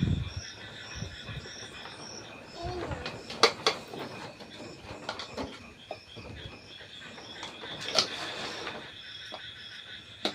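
Night insects chirping steadily, with a few sharp clicks and knocks of utensils being handled, the loudest about three and a half and eight seconds in.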